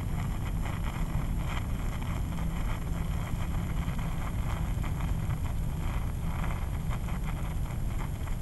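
Steady low rumble of wind buffeting the microphone, with faint irregular crackles above it.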